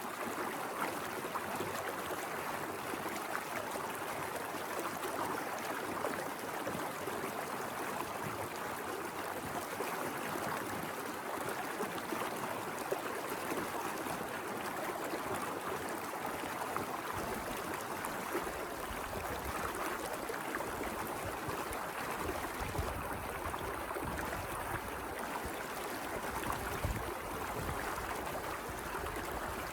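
Small mountain river running over rocks: a steady rushing and gurgling of water. A low rumble joins in about halfway through.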